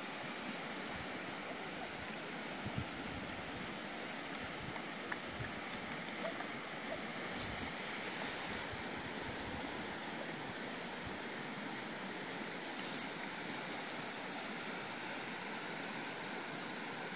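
Steady, even rushing hiss of open-air background noise over wooded scrub, with a few faint short clicks scattered through it.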